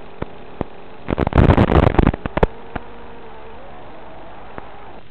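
Analog FPV video-link audio: a steady hiss and hum with a faint tone that shifts in pitch, broken about a second in by a loud burst of crackling static, with scattered sharp clicks. The crackle is the sign of the radio signal breaking up.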